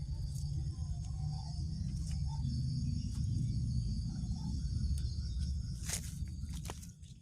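Insects chirring steadily in the background over a strong low rumble, with a few sharp clicks near the end.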